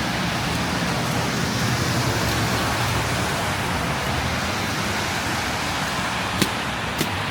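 Steady city street noise: passing traffic with a low engine hum under an even hiss. Two sharp clicks come near the end, about half a second apart.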